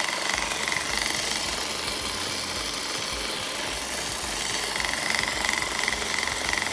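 A Bolex H16 16 mm reflex film camera running on its spring-wound clockwork motor, with the shutter and film-pull claw making a fast, steady mechanical rattle and whir.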